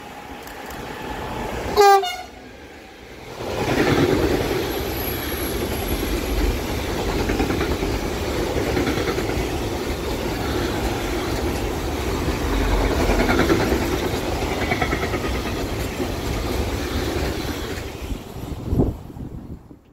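An electric freight locomotive sounds one short, loud horn blast about two seconds in. Then a long freight train of tank-container wagons rolls past, its wheels clattering steadily over the rails for about fifteen seconds. There is a last knock just before the sound stops abruptly.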